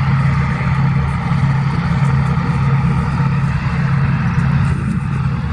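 Engines of a departing passenger ship running, a loud steady low drone with an even rushing noise over it.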